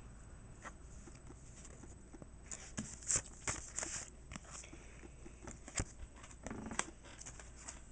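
Pokémon trading cards and booster packs being handled: a scatter of light taps and slides, with a cluster of crinkly rustles about halfway through.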